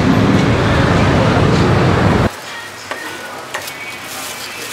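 Loud busy street noise with traffic for about two seconds, then a sudden cut to quieter stall sounds: a few sharp knocks of a cleaver chopping chicken on a wooden chopping board.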